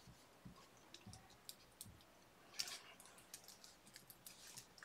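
Faint computer keyboard keystrokes: scattered single clicks, with a brief flurry a little past halfway.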